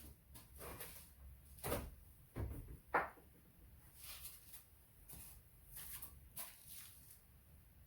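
Scattered light clicks and knocks of hand tools and metal parts being handled while taking apart the top of an ATV engine's cylinder head, the loudest about three seconds in.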